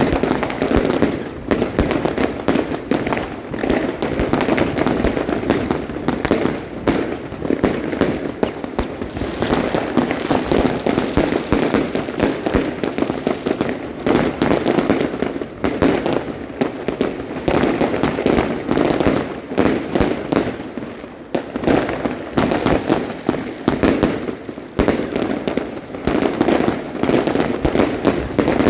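Evolution Fireworks 'Bunker Blaster' firework firing: a long, dense, unbroken run of rapid bangs and crackles. It thins briefly about three-quarters of the way through, then carries on.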